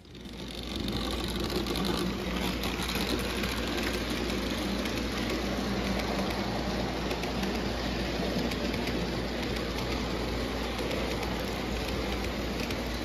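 O gauge three-rail model freight train running past on tubular tinplate track. Wheels and motor make a steady rumble that swells up within the first second and then holds.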